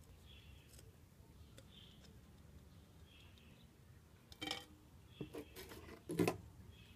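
A few sharp hard clicks and knocks in three clusters, starting a little past the middle, the last cluster the loudest. Underneath, a faint high chirp recurs every second or so.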